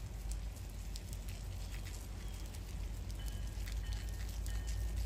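Rain dripping and pattering in scattered small ticks over a steady low rumble from an approaching commuter train. About three seconds in, a faint high ringing of a few steady tones starts and comes and goes.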